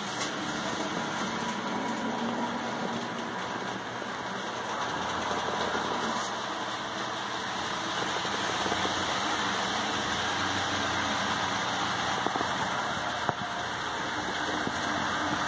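HO-scale model train running on its track: a steady mechanical whir of the motor and wheels, with two short clicks near the end.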